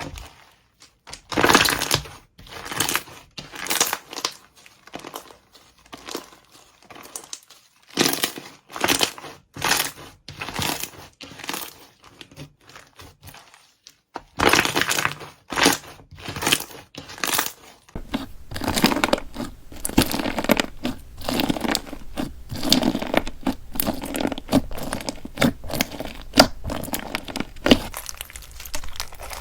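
Slime with Perler beads mixed in being squeezed, poked and pressed by hand, giving repeated crunchy, crackling bursts, roughly one or two a second, denser in the last third.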